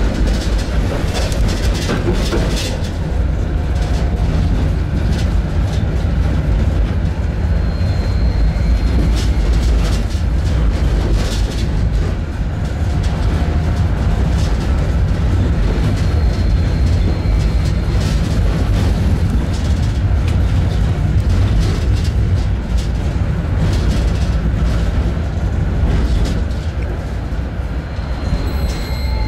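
Tram running on its track: a steady rolling rumble of wheels on rail, with scattered clicks and a few brief high-pitched squeals from the wheels.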